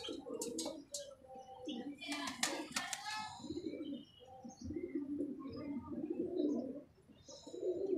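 Domestic pigeons cooing over and over in low, rolling calls, with a few light clicks near the start.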